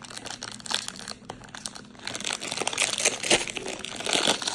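Crinkling and rustling of a plastic toy packet being torn open and handled, getting busier and louder about halfway through.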